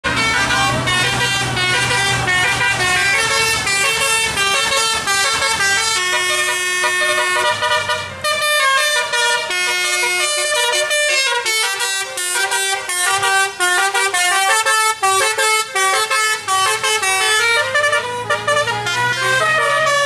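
A bus's musical 'telolet' air horn (Basuri type) playing a tune of held notes that step up and down in pitch. A vehicle engine hums low underneath at the start and again near the end.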